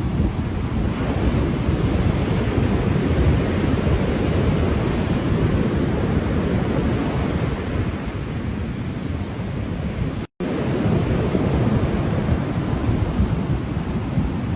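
Ocean surf: a continuous wash of waves with a steady low rumble. The sound cuts out completely for a split second about ten seconds in.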